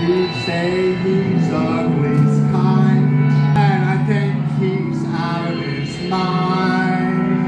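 Live experimental band music: steady low droning tones with a wavering, sliding melodic line above them.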